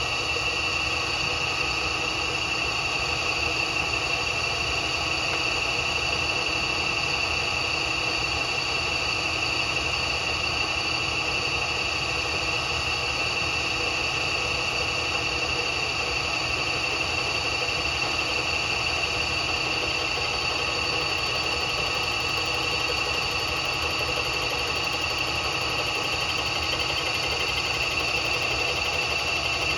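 Bridgeport milling machine running steadily while its cutter takes a light, slow finish cut across a Harley-Davidson cylinder's deck, a steady hum with a high whine over it.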